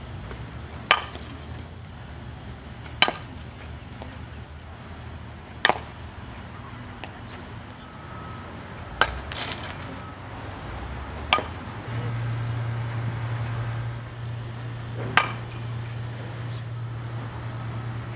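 Softball bat striking softballs in batting practice: six sharp cracks of contact, a few seconds apart.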